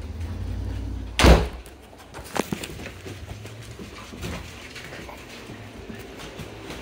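Muffled rubbing against the microphone, then a door shuts with a single thump about a second in, followed by a couple of light clicks.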